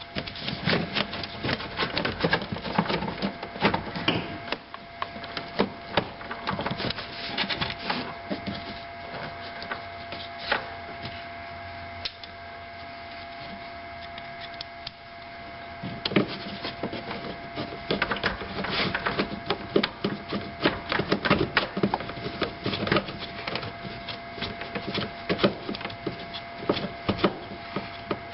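Hands working plastic heater and air-conditioning hoses and fittings back into place: irregular clicks, knocks and rubbing of plastic parts, with a quieter spell about halfway through. A steady faint tone runs underneath.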